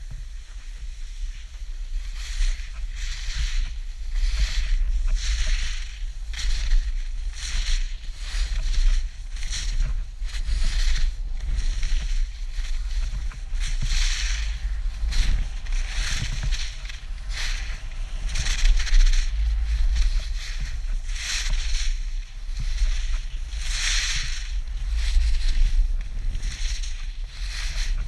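Skis carving turns on packed snow, a scraping hiss that swells with each turn about every second and a half, over steady wind rumble on the microphone.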